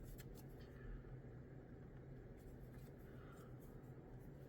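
Faint ticks and light scraping of small plastic model-kit parts being handled over a low room hum.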